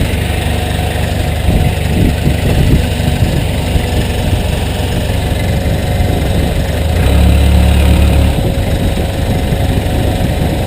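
Caterpillar 428B backhoe loader's diesel engine running steadily, working harder and louder for about a second and a half some seven seconds in, with a few light knocks early.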